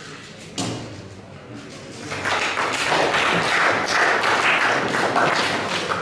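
A single thump, then audience applause: many quick hand claps building up about two seconds in and running loud.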